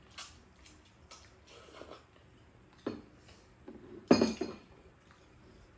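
Metal chopsticks and spoons clinking against ceramic bowls during a meal: scattered light clicks, with one louder clatter about four seconds in.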